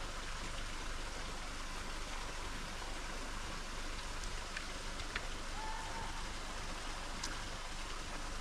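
Small stream flowing: a steady rush of running water.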